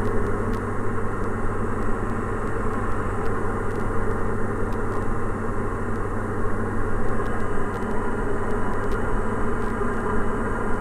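Diamond DA40 NG's turbo-diesel engine and propeller running at a steady cruise power of about 50%, heard from inside the cockpit as an even, unchanging drone.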